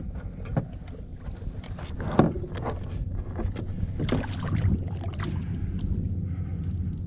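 Water splashing and knocking around a kayak hull, with a steady low rumble of wind on the microphone. Several short sharp knocks and splashes come through, the loudest about two seconds in and a cluster about four seconds in.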